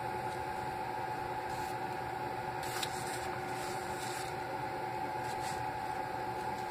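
Small hair dryer's motor running with a steady, high-pitched whine over a hiss of air, on a unit its owner reports as not working. A brief rustle of handling comes about three seconds in.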